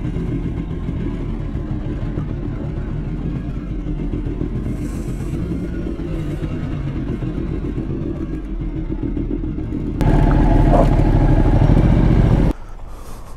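Ducati Multistrada motorcycle engine running at low speed with a steady low rumble. About ten seconds in it grows louder for a couple of seconds, then drops off sharply near the end.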